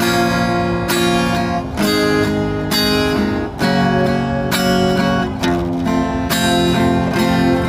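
Acoustic guitar strummed in a steady rhythm, chord after chord, playing an instrumental passage of a sholawat song.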